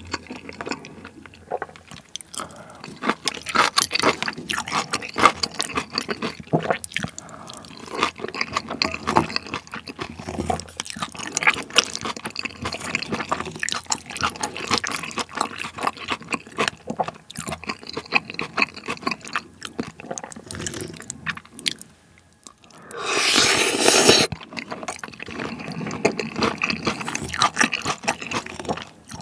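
Close-miked chewing and wet mouth sounds of a man eating pork-neck steak and curry rice, with a wooden spoon scraping and clinking in the bowl. About 23 seconds in, a louder noisy stretch lasts about a second and a half.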